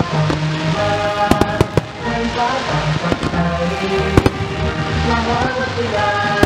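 Aerial firework shells and low fountain mines bursting with a series of sharp cracks, several close together about a second to two seconds in and again about four seconds in, over steadily playing melodic music.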